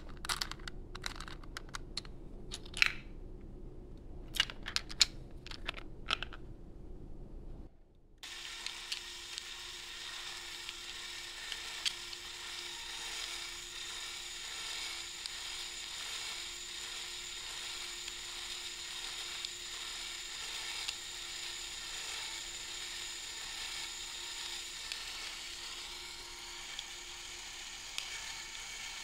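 A 3D-printed cycloidal ball reducer with steel balls: first a few seconds of irregular sharp clicks as it is handled, then, after a brief drop about eight seconds in, a cordless drill spinning its input shaft at a steady speed, a continuous even mechanical whir with a faint steady hum.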